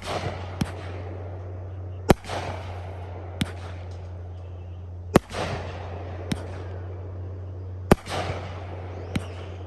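Fireworks bursting overhead: three loud sharp bangs about three seconds apart. Each is followed by a short crackling rumble and a fainter pop about a second later.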